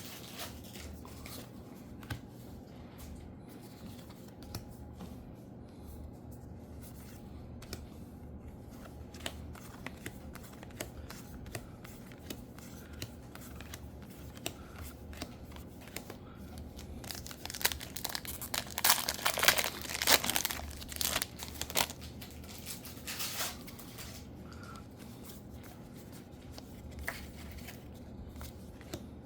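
Foil booster pack wrappers crinkling and tearing as trading card packs are opened, with scattered light rustles and ticks from handling. A louder stretch of crackling and tearing comes about two-thirds of the way through and lasts some six seconds.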